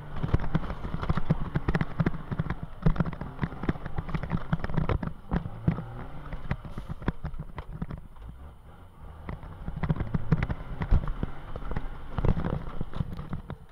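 IVECO trial truck's diesel engine running, heard inside the cab, with the cab and its fittings rattling and knocking constantly as the truck works over rough ground.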